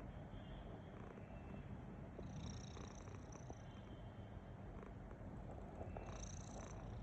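Sleeping domestic cat snoring: a low, steady rumble, with a breathy hiss twice, about three and a half seconds apart.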